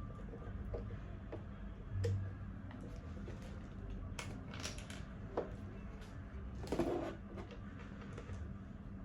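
Scattered clicks and knocks of baby high chair parts being handled and fitted together, a few separate knocks several seconds apart, over a low steady hum.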